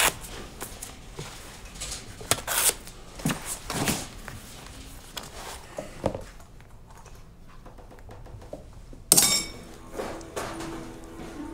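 Handling sounds at a shoemaker's bench: leather and tools rustling and clicking in short scattered bursts, with light knocks and one sharp knock about nine seconds in.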